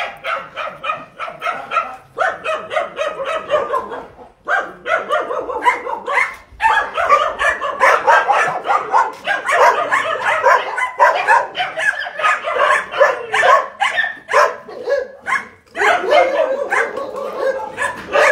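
Many dogs barking at once in their kennels, a dense overlapping chorus of barks and yips with only brief lulls.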